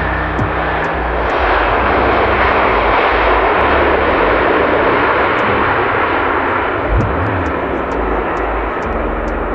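Jet engines of a landing Boeing 787 airliner, a steady loud roar as it slows on the runway just after touchdown. The roar swells about a second and a half in and eases gradually toward the end.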